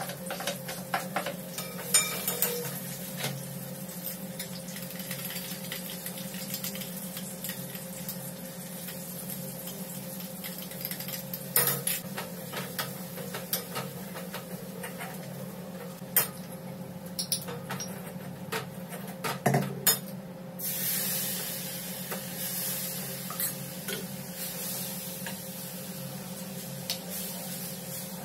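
Steel spoon clinking and scraping against a pan and small steel bowls during stovetop cooking, with a burst of sizzling from the hot pan about twenty seconds in, over a steady low hum.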